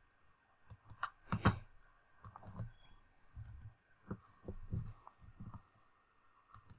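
Faint, scattered computer mouse and keyboard clicks, with a few soft low thumps between them.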